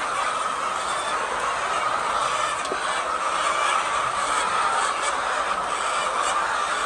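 A large flock of laying hens clucking and calling all at once, a dense, steady din with no pauses.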